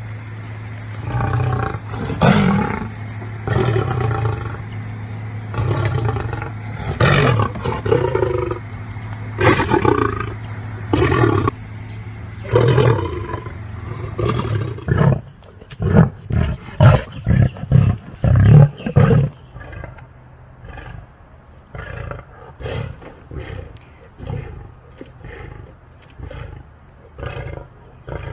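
Lion roaring: several long, drawn-out roars, then a run of short grunts about two a second that are loudest in the middle and trail off fainter toward the end.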